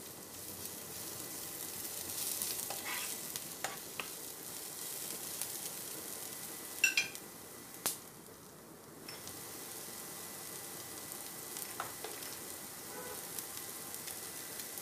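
Sliced onions, garlic and curry leaves sizzling steadily in sesame oil in a nonstick frying pan while being stirred, with a few light clicks of the spatula against the pan.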